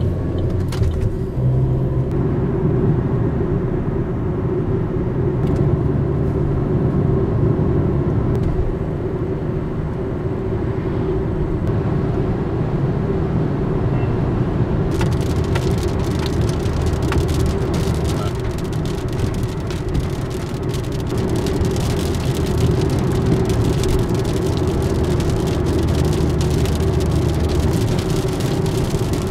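Car cabin noise while driving: steady engine and tyre hum. About halfway through, raindrops start striking the windshield and body as many small taps that thicken toward the end.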